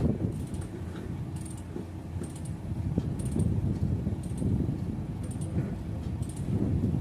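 Excavator running with a low steady rumble, with light metallic clinks about once a second.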